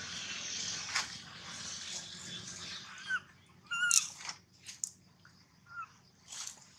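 Baby macaque giving short, high squeaky cries: three brief squeaks in the second half, with a few sharp clicks among them. Rustling in dry leaves and fur comes before them.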